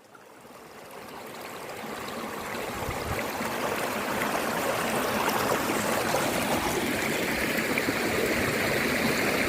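Rushing water of a waterfall and its stream: a steady hiss of falling water that fades in over the first few seconds and then holds.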